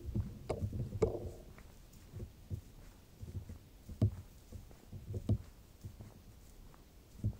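Footsteps on a dirt forest trail: irregular low thuds of a walker's steps, with a brief rustle about a second in.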